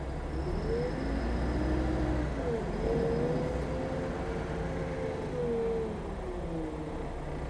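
City bus drivetrain heard from inside the cabin: a pitched engine and transmission whine that rises twice as the bus gathers speed, holds steady, then falls as it slows, over the low rumble of the ride.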